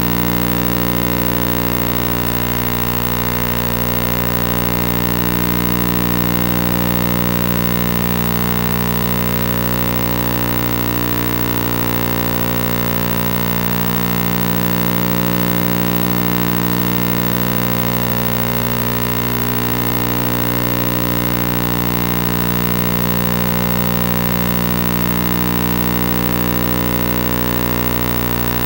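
A steady, loud droning hum made of many held tones stacked from low to high, unchanging throughout, with a slight regular wavering about every three seconds.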